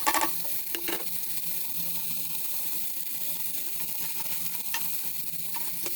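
Pan of softened tomatoes sizzling steadily on the heat as chopped carrots are added, with a few light knocks in the first second and one more about five seconds in.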